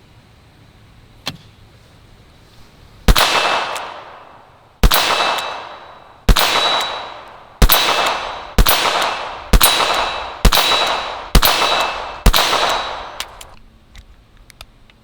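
High Standard R-101 .22 LR revolver fired nine times, emptying the cylinder: the first shots come about a second and a half apart, then speed up to roughly one a second. Each shot trails off in a long echo.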